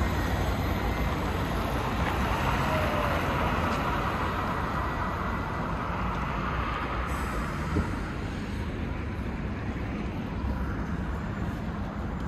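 Road traffic on a wide city street: a steady rush of passing cars and buses, easing slightly about two-thirds of the way through.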